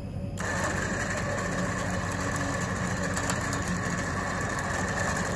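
A vehicle engine idling steadily, with an even hum that does not change.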